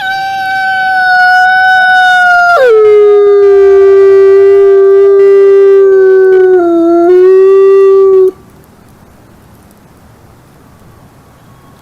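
Wolf howling: one long, loud howl held on a steady pitch, which drops abruptly to a lower pitch about two and a half seconds in, holds there, and stops suddenly a little after eight seconds. Faint background hiss follows.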